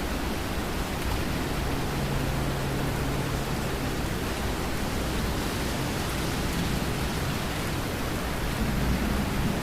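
Steady rain falling, a dense even hiss with no breaks or single drops standing out. A faint low hum comes and goes underneath.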